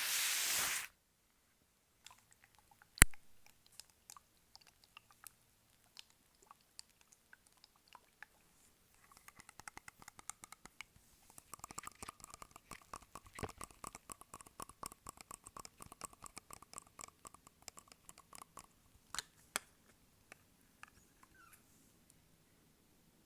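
Close-miked sticky tape handled for ASMR: a short ripping noise at the start, a single sharp click about three seconds in, then a long run of dense crackling and small clicks, thickest in the middle, like tape being slowly peeled off a surface.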